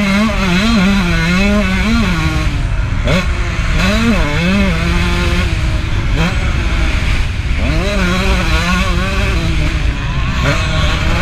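KTM 150 SX's single-cylinder two-stroke engine being ridden hard, its pitch rising in repeated pulls and dropping back as the throttle is worked on and off. Heavy wind rush is on the onboard microphone.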